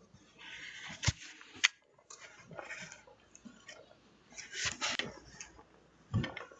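Scattered rustling and handling noises, heard through a doorbell camera's microphone, with two sharp clicks about a second in and a low thump near the end.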